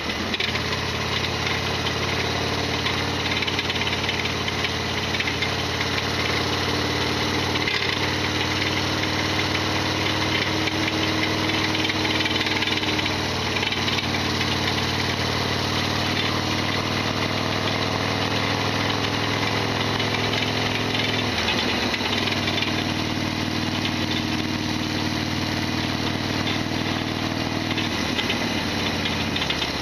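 Harley-Davidson Sportster XL1200's air-cooled V-twin running steadily under way, with the loud rattling mechanical noise that the owner calls a big abnormal noise. The engine note breaks off briefly about two-thirds of the way through, then settles again.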